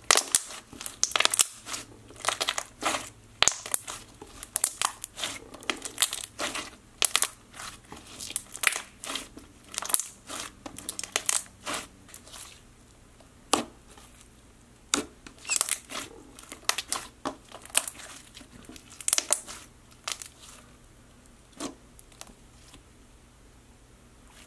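Clear blue slime with micro beads being pressed, poked and stretched by hand, giving quick sticky pops and crackles as air bubbles burst. The pops come thick and fast at first, thin out after about twelve seconds, and nearly stop near the end.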